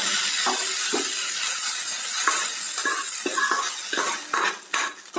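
Metal spoon scraping and knocking fried vegetables out of an aluminium kadai into a steel pot, with scattered clinks of metal on metal, over a steady sizzling hiss that dies away about four seconds in.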